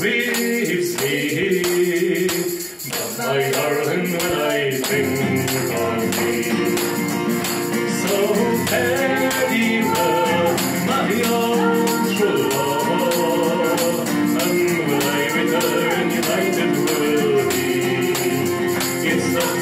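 Live song by a woman singing with acoustic guitar accompaniment and a shaken hand-percussion rattle keeping the beat, with a brief drop in level about three seconds in.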